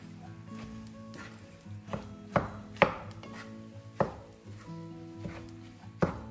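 A utensil knocking and scraping in a frying pan while the sausage, egg and cheese mixture is stirred, with a few sharp knocks, the loudest between two and three seconds in. Soft background music plays underneath.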